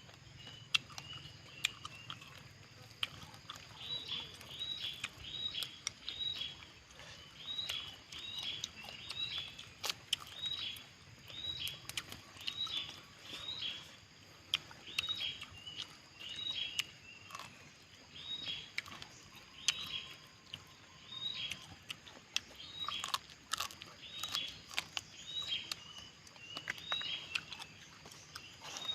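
A bird calling over and over outdoors: short high notes, each dropping in pitch, repeated a little more than once a second, with scattered sharp clicks among them.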